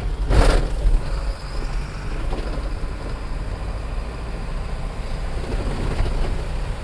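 Truck on the move heard from inside the cab: a steady low rumble of engine and road noise, with a short loud knock about half a second in.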